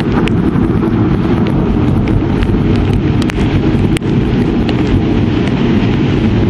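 Wind buffeting the microphone in a thunderstorm, a loud, steady, low rumble, with faint, sharp ticks scattered through it.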